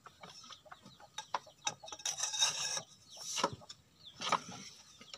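Steel wrench and pipe extension bar working the mounting bolts of an excavator's lower track roller: irregular metal scraping and rasping with a few sharp clanks.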